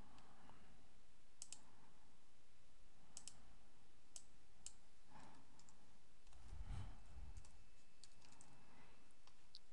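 Faint computer keyboard keystrokes and mouse clicks: a handful of separate clicks at uneven intervals, over a low hiss. A soft, low bump comes about two-thirds of the way through.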